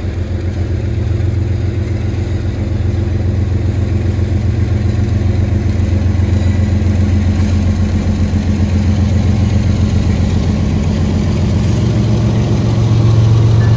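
Diesel freight locomotive approaching under power: a steady, low, pulsing engine throb that grows louder as it nears and passes close by near the end.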